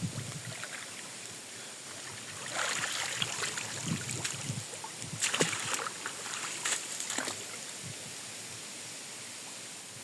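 Water splashing and sloshing in a run of irregular bursts with sharp clicks for a few seconds, over a steady hiss of moving water.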